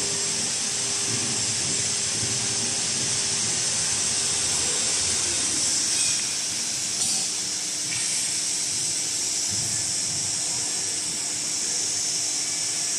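LZ-1500 open dual shaft mixer running: a steady hiss with a faint steady hum underneath, whose pitch drops slightly about five and a half seconds in.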